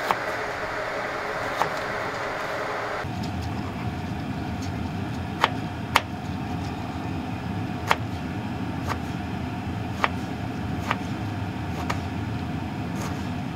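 Kitchen knife slicing through onion and then tomato, its blade tapping sharply on a plastic cutting board about once a second, over a steady low hum.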